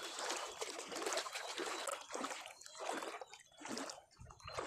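Shallow water splashing and trickling in uneven bursts.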